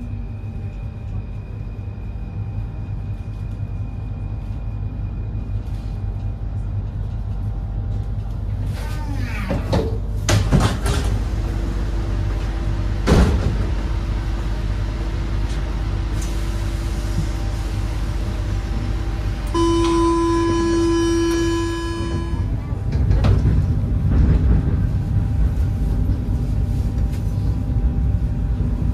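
Paris Métro line 5 train standing at the platform with its equipment humming, a few door and passenger clatters, then the door-closing warning buzzer sounds for about three seconds. The doors shut and the train pulls away, its rumble growing louder.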